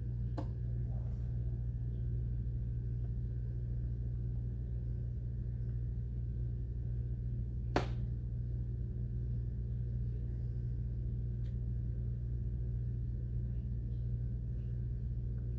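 A steady low hum, with one sharp click about eight seconds in.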